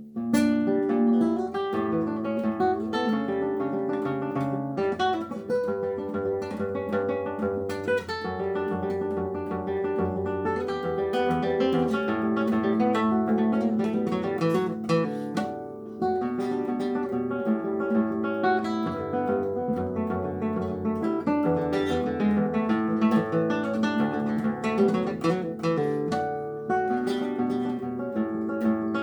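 Acoustic guitar playing a plucked piece, with runs of single notes and struck chords; a new phrase starts sharply right at the beginning after a fading chord.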